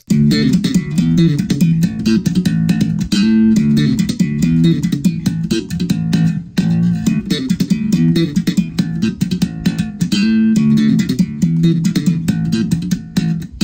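Electric bass guitar played fingerstyle: a fast, busy line of short plucked notes, loud and up front in the mix, with a brief break about six and a half seconds in.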